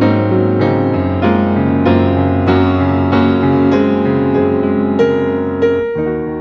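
Background music: a soft piano or electric piano playing a steady run of notes, about one and a half notes a second.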